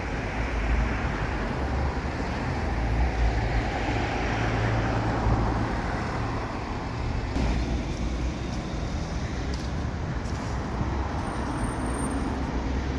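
Road traffic noise: a steady wash of passing vehicles over a low rumble.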